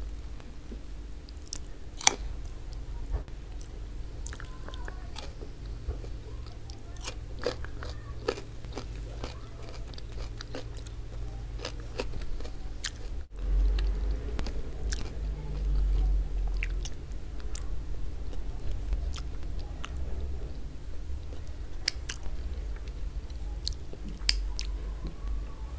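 Close-miked wet chewing and mouth sounds of a person eating oxtail tagine in tomato sauce, with frequent sharp lip smacks and clicks.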